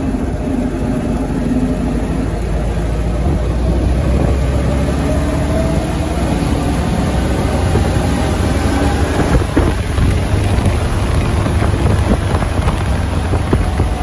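Old military jeep's engine running on the road with a steady rumble. Its note rises as it gathers speed, drops away about nine seconds in, then starts climbing again. There is a sharp knock about nine seconds in.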